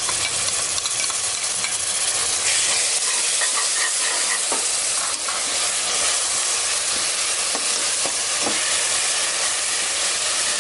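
Onions, pounded shallots and green chillies sizzling in hot ghee in an aluminium pressure cooker, with a steel spoon stirring and scraping the pan in faint scattered clicks over the steady hiss of frying.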